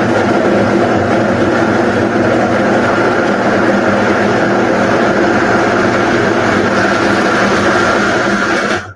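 Countertop blender running steadily at full speed, chopping tomatoes, onion and pepper in about a cup of water; the motor cuts off suddenly near the end.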